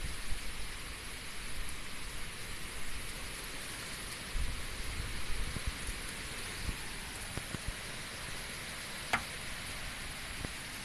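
Heavy typhoon rain pouring steadily, with gusts of wind buffeting the microphone as low rumbles about halfway through. A single sharp click a little after nine seconds in.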